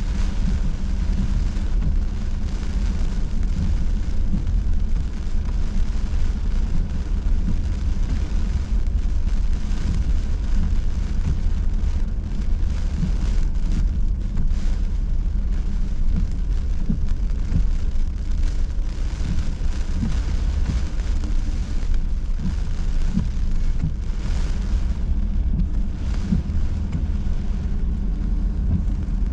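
Heavy hurricane rain and wind on a car moving slowly along a flooded road, heard from inside the cabin. A steady low rumble of engine and tyres sits under the hiss of the rain.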